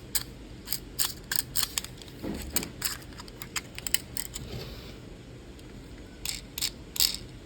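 Sharp clicks and taps of the small parts of a peace pistol being handled and pressed into place, coming in quick runs.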